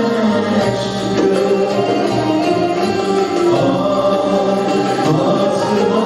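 Live Turkish folk music: a male solo voice and a choir singing over a bağlama (saz) ensemble, with long held sung notes.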